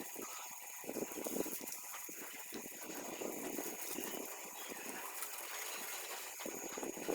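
Water spraying from a hose pipe, hissing and splashing as it is played over a bike being washed, the flow swelling and easing unevenly.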